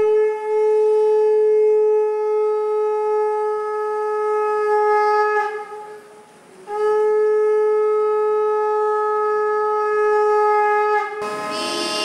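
Conch shell (shankha) blown in two long steady blasts, the first breaking off about five and a half seconds in and the second following after a pause of about a second. Near the end, harmonium music comes in.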